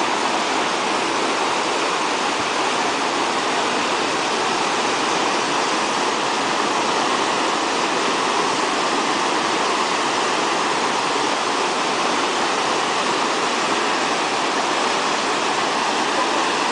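Floodwater rushing over rocks in a swollen creek: a steady, unbroken rush of whitewater.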